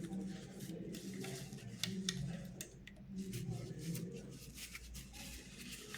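Toy packaging being handled and opened, with scattered sharp clicks and crackles.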